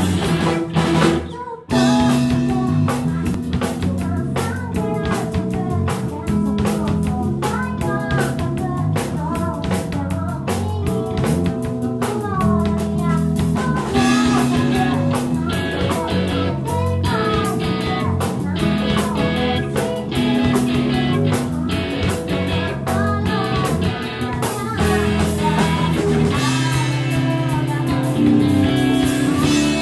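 Live rock band playing: a woman singing lead over electric guitar, bass, drums and keyboard. The band stops for a moment about a second and a half in, then comes back in at full volume.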